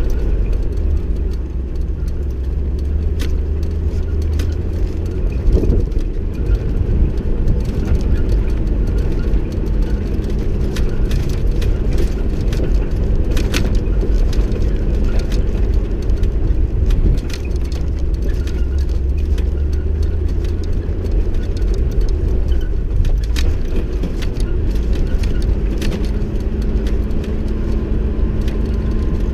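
A vehicle engine running steadily while driving off-road on a rough dirt track, with frequent short knocks and rattles over the low rumble.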